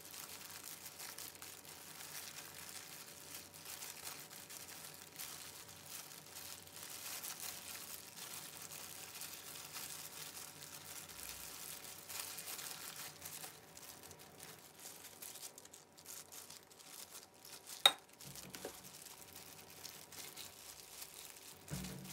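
Clear disposable plastic gloves crinkling and rustling as gloved hands squeeze and roll a ball of cooked rice. A single sharp click about three-quarters of the way through is the loudest sound, and a soft knock comes near the end.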